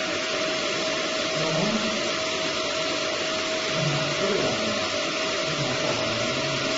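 Steady blower-like noise with one constant mid-pitched tone, from a running CO2 laser marking machine and its fans.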